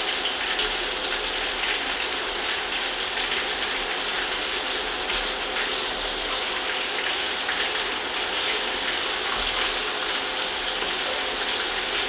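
Cornmeal-coated catfish fillets frying in oil in a cast-iron skillet: a steady crackling sizzle, with a few light clicks of a fork against the pan as the fillets are turned.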